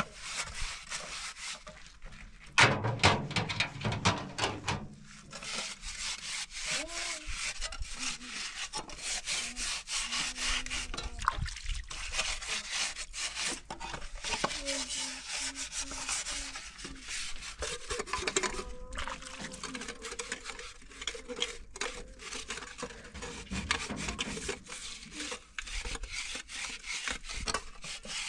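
A stovepipe elbow being scrubbed by hand, a rapid rasping rub of stroke after stroke, loudest from about two and a half seconds in.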